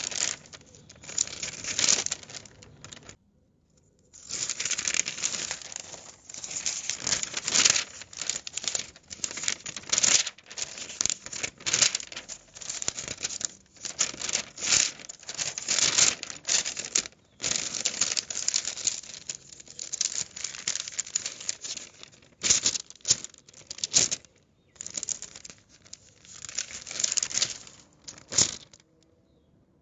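Newspaper being handled, rustling and crinkling in quick, irregular bursts. There is a brief pause about three seconds in and another near the end.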